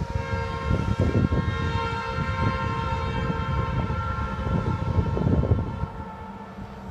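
Locomotive air horn sounding one long, steady chord as a train approaches, fading out near the end, over a low rumble.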